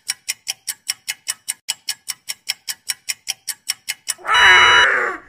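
Clock-ticking sound effect, fast and even at about six ticks a second. Near the end it gives way to a short, loud burst of alarm-clock ringing.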